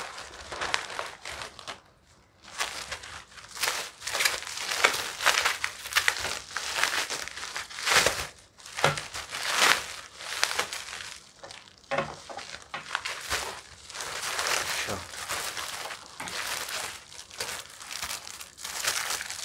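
Plastic courier mailer and bubble wrap crinkling and rustling in irregular bursts as a parcel is unwrapped by hand, with a brief lull about two seconds in.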